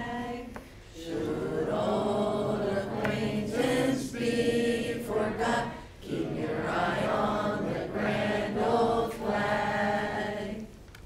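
A group of children singing together in held phrases with short breaks; the song ends shortly before the end.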